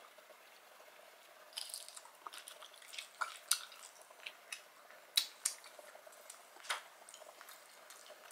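Close-miked eating sounds from peeling and eating Cajun-sauced boiled shrimp: sparse, sharp wet clicks and smacks of fingers on the shrimp and chewing. They start about a second and a half in and come irregularly, one or two a second.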